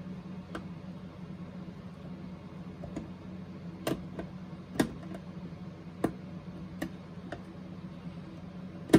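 Irregular sharp clicks and taps of a long screwdriver working the screws in a boombox's plastic rear case, the loudest near the end, over a steady low hum.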